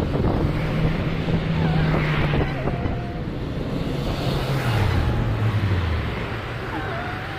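City road traffic heard from a moving car: a steady rush of tyre and engine noise, with wind on the microphone. A low engine hum holds steady, then drops in pitch about five seconds in.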